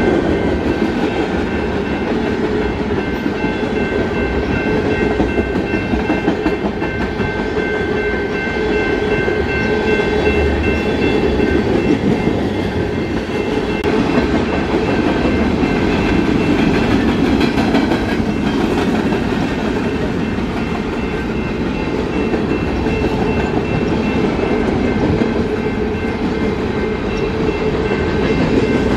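Freight train cars (covered hoppers and tank cars) rolling past, their steel wheels rumbling and clattering over the rail joints. A steady high whine rides over the rumble during roughly the first half, then fades.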